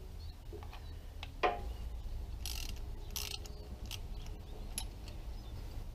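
Ratchet wrench and spark plug socket working a spark plug out of a Suzuki GS550's cylinder head: a sharp knock, then short rasps of the ratchet and a few light clicks. The plug is the suspect one from the cylinder with the cold exhaust, and it turns out fouled.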